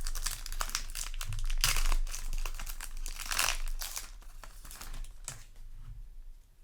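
Foil trading-card booster pack wrapper crinkling and tearing as it is ripped open and handled; the crackling is busiest over the first four seconds and thins out near the end.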